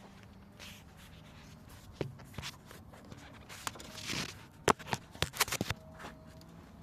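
Hand tools clicking and knocking against metal parts of a car engine, with a short scrape about four seconds in and a quick run of clicks soon after.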